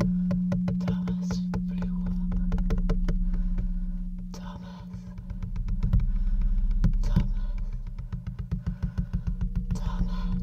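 Electronic theatre soundscape: a steady low drone with a dense, irregular patter of clicks over it, swelling and fading twice. Near the end the clicks settle into a regular pulse of about five a second.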